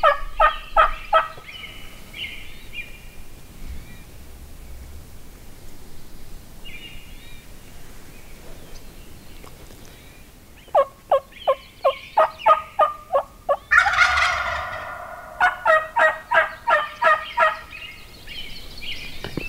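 Merriam's wild turkey gobblers gobbling: one gobble at the start, then after a long lull two more rattling gobbles about eleven and fifteen seconds in, with a louder, rougher burst between them.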